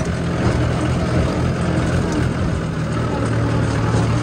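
Tractor engine running steadily under way, a low even drone.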